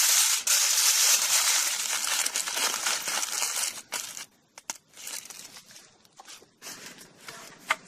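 Aluminium foil crinkling and crumpling as an eel fillet is wrapped up in it: a loud dense crinkle for the first few seconds, then scattered smaller crackles.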